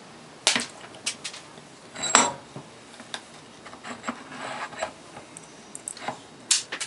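Sharp metallic clinks and knocks from a Sturmey Archer three-speed hub and a steel tool being handled at a bench vise, with one louder, ringing clink about two seconds in.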